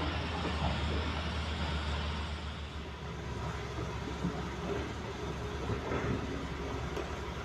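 Heavy diesel construction machinery running steadily at a low drone, with a few faint knocks and clatter over it.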